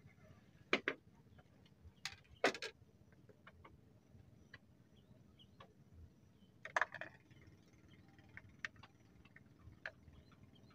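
Scattered sharp clicks and knocks over a quiet background. There are a few louder ones in the first three seconds and another cluster about seven seconds in, with fainter ticks in between.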